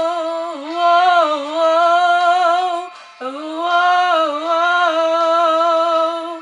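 A female voice singing two long held notes with vibrato, a short break between them about three seconds in.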